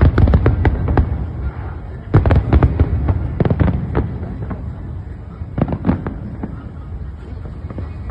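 Fireworks bursting in volleys of sharp bangs and crackles. The heaviest volleys come at the start and about two seconds in, another comes near six seconds, and the bursts thin out toward the end.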